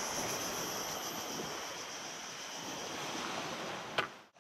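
Steady rush of sea surf and wind on the microphone, with a continuous high insect drone behind it. Near the end there is a single sharp click, and then the sound cuts off suddenly.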